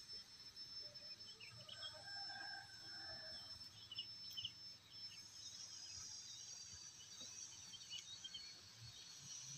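Faint rural outdoor ambience: a steady high insect drone with scattered short bird chirps.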